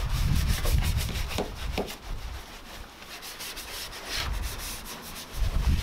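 A lambskin wash mitt and a detailing brush scrubbing the wet, cleaner-soaked underside of a car bonnet in a run of quick rubbing strokes. A low rumble sits under the first couple of seconds and returns near the end.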